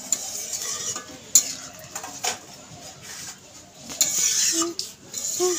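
Metal spatula stirring watery curry gravy in a metal kadai, scraping along the pan with a few sharp clinks against its side, and a longer scrape about four seconds in.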